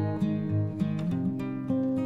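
Background music: an acoustic guitar playing a melody of plucked and strummed notes.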